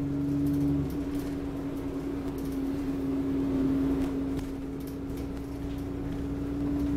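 Interior sound on the upper deck of an Alexander Dennis Enviro400 Trident double-decker bus on the move: steady engine and road noise with a constant hum, and a lower drone that drops out about a second in.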